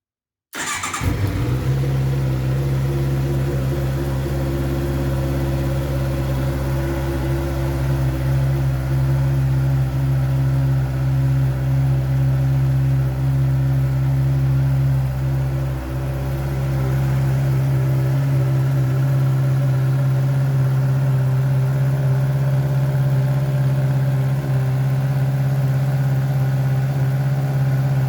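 Heavy motorcycle engine started through its polished and repainted exhaust, catching about half a second in and then idling steadily. Past the halfway point the deepest rumble eases slightly while the idle holds.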